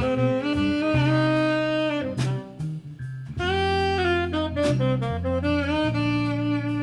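A military band playing a jazz-styled Christmas arrangement: wind instruments holding and moving through chords over a bass line, with a brief dip in loudness in the middle before the full band comes back in.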